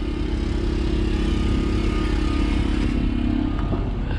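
Small portable generator running steadily, a constant engine hum, powering the mini-split air conditioner. A couple of light clicks near the end.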